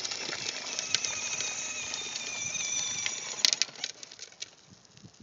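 Child's battery-powered ride-on toy scooter running: the electric motor and plastic gearbox whine at several steady pitches, with clicking and grit from the plastic wheels on the asphalt. The whine stops with a sharp click about three and a half seconds in.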